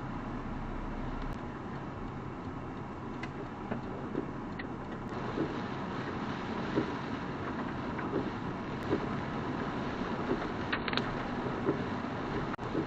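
Car driving on a rain-wet road, heard from inside the cabin through a dash cam's microphone: a steady rush of tyre and road noise with scattered light ticks.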